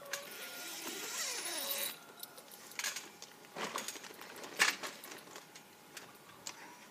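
A rasping rustle for about two seconds, then a few scattered knocks and clicks, as someone climbs out through the mesh safety net of a trampoline enclosure.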